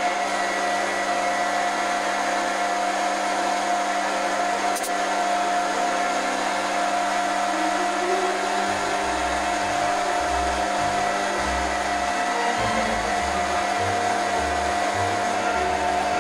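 Foreman TB1835 mini lathe running steadily, its motor and gear train giving a steady whine as it turns a 304 stainless steel rod.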